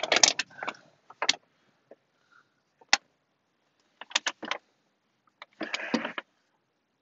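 Hands handling small car parts: a series of sharp clicks and light knocks, with a cluster of four around the middle and a short scraping rustle near the end.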